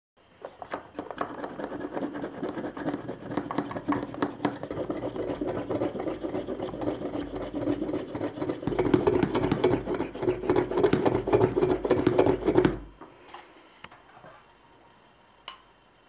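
Metal mesh plunger of a glass French press scraping and clicking against the glass as it is worked through the liquid, growing louder and cutting off suddenly about thirteen seconds in.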